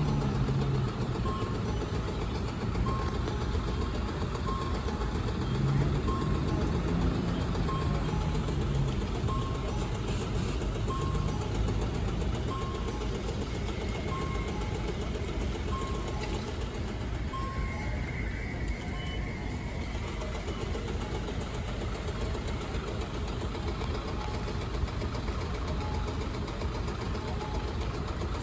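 City bus engine running as the bus pulls slowly away from its stop, with a steady beeping about twice a second over the first two-thirds.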